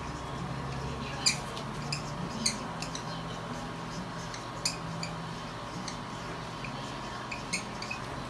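Marker pen squeaking and tapping in short, separate strokes as it writes on a plastic-covered paper chart, over a faint steady hum.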